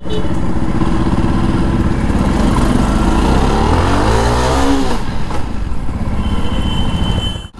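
Jawa Perak motorcycle's single-cylinder engine running under way, rising in pitch as it revs about three seconds in, then dropping back.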